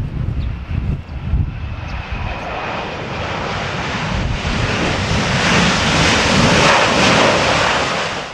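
Jet engines of a Boeing 787-8 airliner passing close on a crosswind landing. A faint high whine comes at first, then the engine roar builds to its loudest a few seconds in and cuts off suddenly. Gusts of strong wind buffet the microphone at the start.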